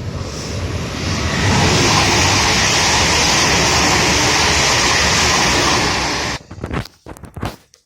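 Train passing the platform at speed: a loud rushing noise that builds over the first second or so, holds steady, and cuts off abruptly about six seconds in, followed by a few short clicks.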